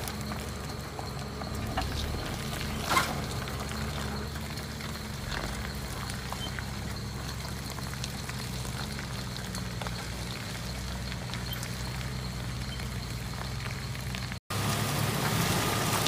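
An engine running steadily with a low drone and scattered small knocks and rattles. The sound cuts out for an instant near the end and is louder afterwards.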